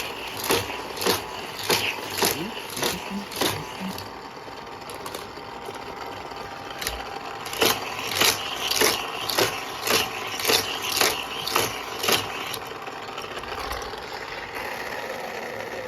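Powered Hot Wheels race track running, its booster motor whirring steadily while toy cars clack through it at a regular rate of about two a second. The clacking thins out from about four to seven seconds in, then picks up again.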